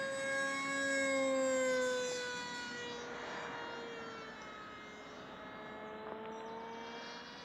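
Radio-controlled twin-jet model plane flying overhead with a steady whine, loudest in the first two seconds, its pitch dropping as it moves off and rising slightly near the end.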